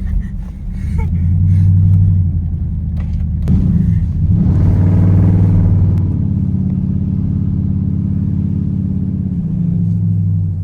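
Car engine running hard and revving, its pitch stepping up and down several times, with a louder, noisier surge about halfway through.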